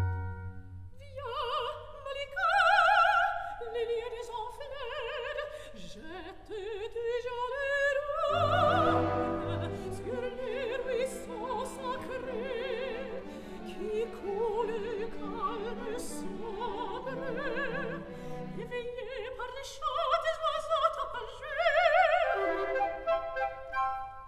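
Background music: an operatic voice singing with wide vibrato over an orchestra.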